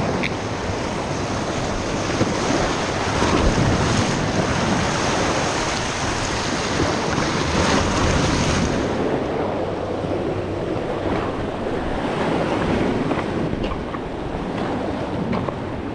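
Surf washing and splashing against granite jetty boulders, with wind buffeting the microphone. The hiss of the water turns duller about halfway through.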